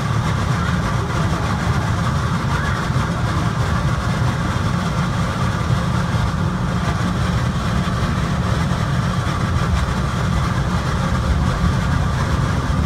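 Automated airport people mover running along its guideway, heard from inside the car: a steady low rumble of the running gear with an even hiss above it.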